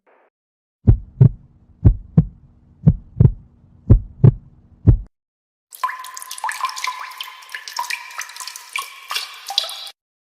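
Heartbeat sound effect: about five doubled low thumps, one pair a second, that stop suddenly. After a short gap comes a water sound effect full of quick drips and gurgles.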